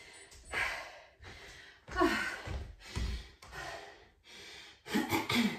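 A woman breathing hard and gasping, out of breath straight after a hard cardio interval: a run of heavy breaths and sighs, a few of them voiced and falling in pitch.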